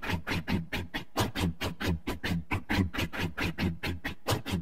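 Motorcycle engine idling with an even, loping beat of about seven pulses a second.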